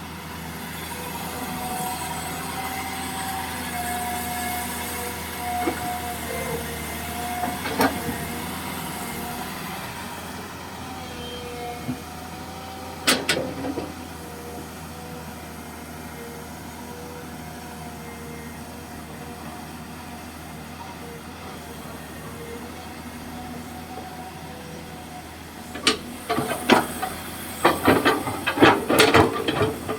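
Komatsu PC200-6 hydraulic excavator running as it digs, its engine and a steady whine held throughout, with a sharp knock about 8 seconds in and another about 13 seconds in, then a rapid run of loud knocks near the end.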